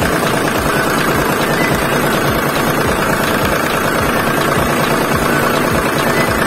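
Tractor engine idling with a steady, rhythmic low chug.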